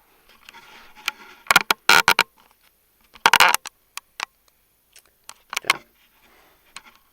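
Handling noise close to the microphone: scattered sharp clicks and knocks with short rustling scrapes, loudest in two clusters about one and a half and three seconds in.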